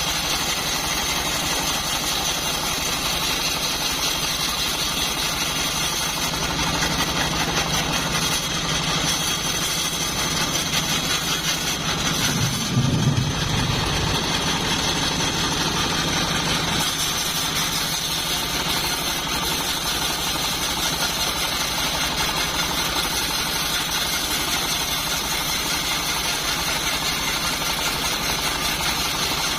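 Homemade bandsaw sawmill running with a steady mechanical drone. For about ten seconds in the middle it grows louder and deeper, peaking about halfway, as it comes under load cutting old teak heartwood, then settles back.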